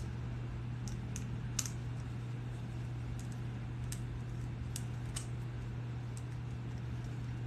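Scattered light clicks and taps as a leatherworker handles the leather piece and small hand tools, over a steady low hum.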